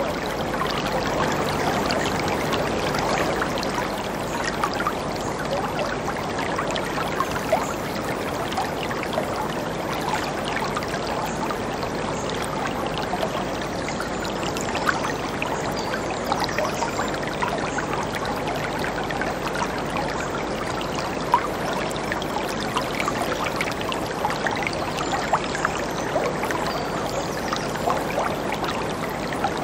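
Whitewater river rapids rushing steadily over and around boulders, with small splashes flecking the steady rush now and then.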